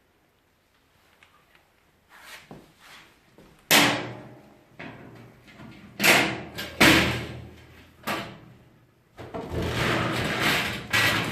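Handling noises from hard objects: four sharp knocks or bangs a second or two apart, then a few seconds of continuous scraping and rattling.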